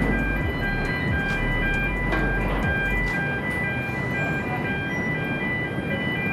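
Electronic warning alarm on a car ferry, beeping steadily about two times a second at a few fixed pitches, over the ship's engine noise. A low hum under it drops away about three seconds in.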